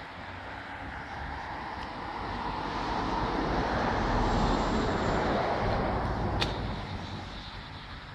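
A road vehicle passing on wet asphalt: its tyre and engine noise swells up, peaks mid-way and fades away. A single sharp click comes near the end.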